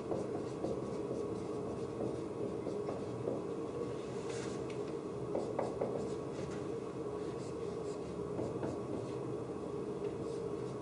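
Dry-erase marker writing on a whiteboard: short scratchy strokes scattered throughout, over a steady low room hum.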